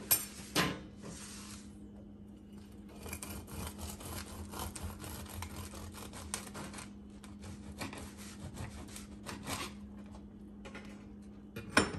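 Knife sawing back and forth through a loaf of homemade pumpernickel rye bread on a plastic cutting board, a rapid rasping run of strokes lasting several seconds. A couple of knocks at the start and another near the end.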